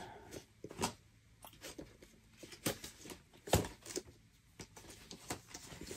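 Paper and photo prints being handled and shuffled: scattered light rustles and taps, with a sharper tap about three and a half seconds in.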